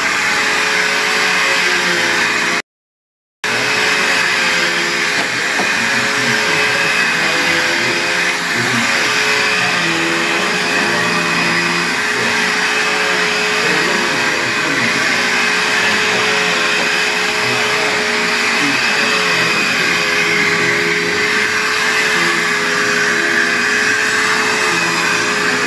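Vacuum cleaner motor running steadily, with a constant hum under its rushing noise. The sound drops out completely for under a second about three seconds in.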